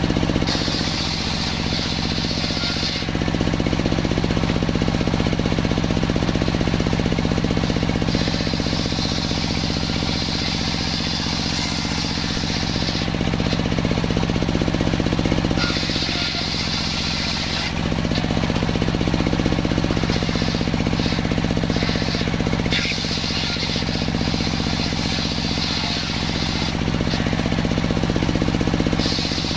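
Bench-mounted circular saw running with a steady drone while ripping salam wood into planks. Each pass through the wood adds a high hissing whine: at the start, from about 8 to 13 seconds, around 16 to 18 seconds, and again at the end.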